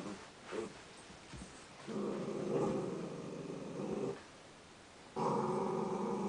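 Dogs play-growling during a rough play session between an Afghan hound and an Italian greyhound: a couple of short growly sounds at the start, then two long, steady growls of about two seconds each, the second starting about five seconds in.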